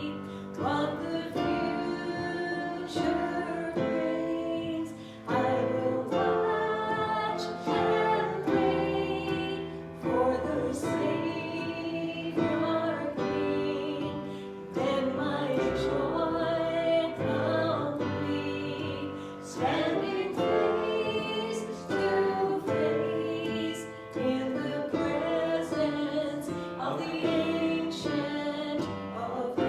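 Church music: voices singing a slow song with piano accompaniment, in phrases of a few seconds each.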